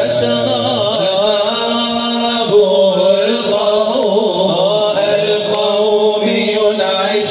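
A man singing an Arabic Islamic nasheed, a devotional chant, in long drawn-out notes whose pitch sweeps up and down.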